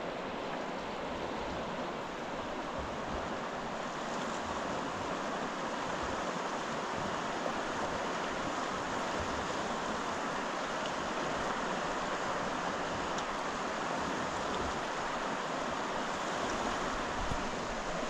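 Steady rushing of water.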